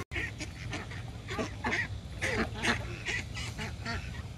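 Ducks quacking, many short calls one after another.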